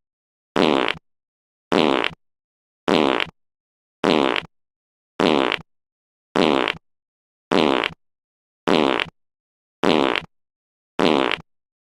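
A fart sound effect: the same short, low, sputtering fart repeated identically about once every 1.2 seconds, with silence between each one.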